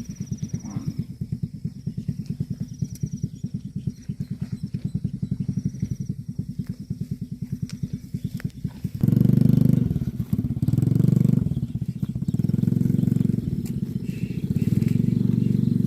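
A small engine running with a rapid, even beat. About nine seconds in it turns much louder, swelling and easing in rounds of a second or so.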